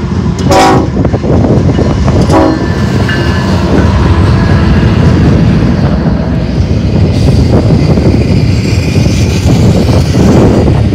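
BNSF diesel locomotive passing close at speed, giving two short horn blasts in the first few seconds over a heavy rumble of engine and wheels. Intermodal flatcars carrying truck trailers then roll by with a steady rumble and clatter of wheels on the rails.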